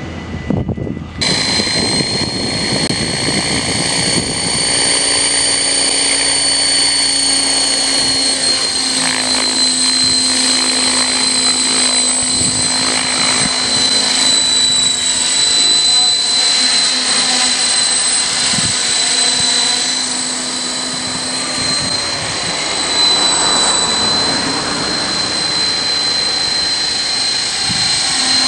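KDS Innova 550 flybarless electric RC helicopter in flight, starting about a second in: a steady high whine over a lower rotor hum, the pitch and level wavering slightly as it manoeuvres.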